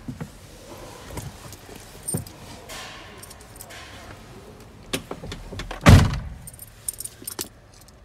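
A bunch of keys jangling, with scattered clicks and knocks as they are handled in the van's cab. There is one loud, deep thump about six seconds in.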